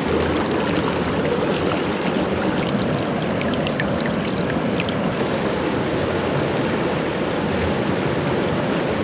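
River water rushing over boulders in shallow rapids, a steady, even rush.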